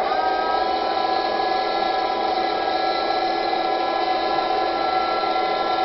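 Small electric motor and gearbox of an RC model tank whirring steadily as the turret traverses, a constant whine with several pitches held together.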